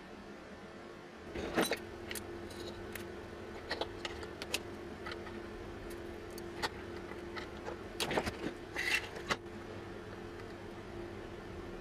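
Scattered small metallic clinks and rattles, several short clusters of them, over a steady low hum.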